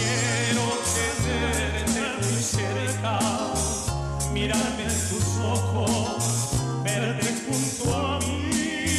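Men singing a song into microphones, the voice wavering with vibrato, over backing music with a steady bass and regular cymbal ticks.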